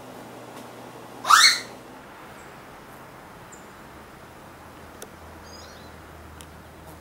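A short, loud rising whistle-like sweep about a second in, then a few faint, short, high bird chirps near the end.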